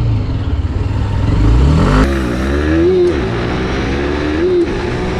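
Hero Xtreme 160R's single-cylinder engine under full-throttle acceleration in a 0–60 km/h drag run. The engine pitch climbs and then drops at three quick upshifts, about two, three and four and a half seconds in.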